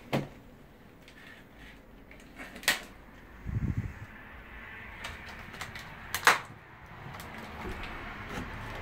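A few sharp knocks, the loudest about six seconds in, and a brief run of low thumps a little past three seconds in.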